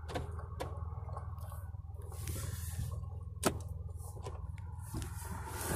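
Steady low hum of a car idling, heard from inside the cabin, with a few sharp clicks and taps of a phone being handled; the loudest click comes about three and a half seconds in.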